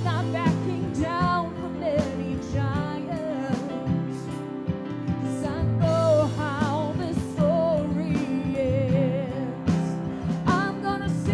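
Live worship band music: a woman singing held notes with vibrato over guitar, piano and drums.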